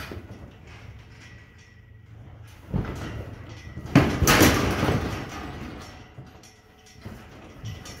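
Steel pen panels rattling and clanking as a horse shifts against them: a sudden knock a little before three seconds in, then a louder rattle about four seconds in that dies away over a second or so.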